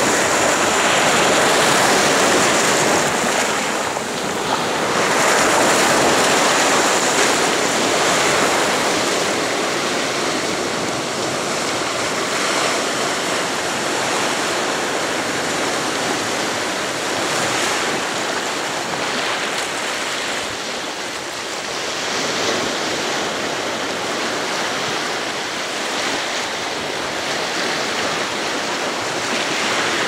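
Black Sea surf breaking and washing ashore, a continuous rushing noise that swells with each wave. The surges are loudest in the first several seconds, then settle into a steadier wash of water around rocks and over shingle.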